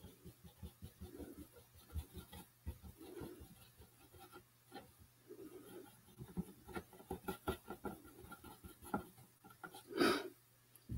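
Paintbrush brushing and dabbing paint onto a box, a run of soft scratchy strokes and taps. There is one louder knock about ten seconds in.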